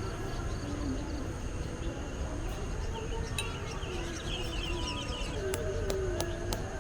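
Strong wind buffeting the microphone as a steady low rumble, with a bird chirping briefly midway, a thin steady insect drone, and faint distant voices.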